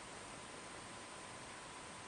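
Faint steady hiss of studio room tone, with a faint steady high tone running through it.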